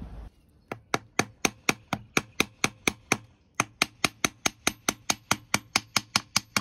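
Hammer blows on a drift, knocking out the old shaft seals from a Yanmar SD20 saildrive leg: a steady run of sharp metallic strikes, about four a second, with a short pause about halfway through.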